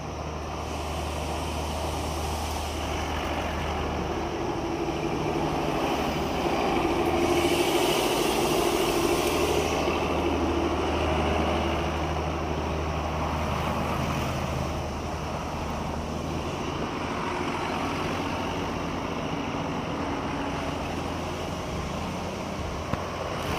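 Road traffic going by: motor vehicles passing over a steady low engine hum, the loudest pass about seven to ten seconds in.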